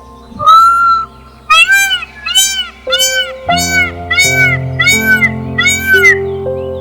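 An animal gives one longer call, then a run of six loud calls, each rising and falling in pitch, about one every three-quarters of a second. Background music with held notes plays underneath.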